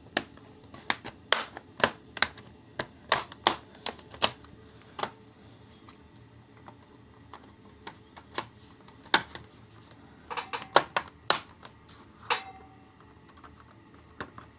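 Irregular sharp plastic clicks and snaps of a laptop's bottom case being prised open, its clips working loose, with a quick flurry of clicks about two-thirds of the way through.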